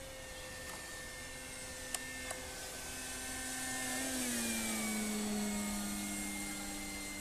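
Electric motor and propeller of an E-flite Carbon Z Cub model plane whining as it flies past. The whine grows louder, and its pitch drops about four seconds in as the plane passes overhead. Two faint clicks come about two seconds in.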